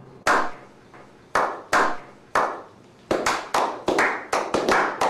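A slow clap by a small group: single hand claps about half a second to a second apart, then from about three seconds in more hands join and the claps come faster and closer together.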